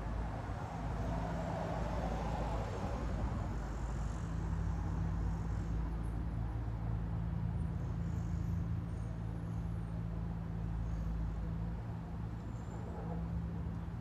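Road traffic at a city intersection: a steady low hum of idling and passing engines over a continuous wash of tyre and traffic noise.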